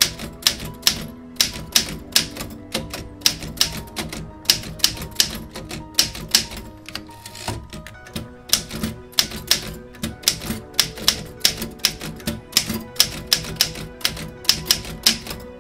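Manual typewriter typing: its type bars strike the paper in a quick, uneven run of sharp clacks, about three a second.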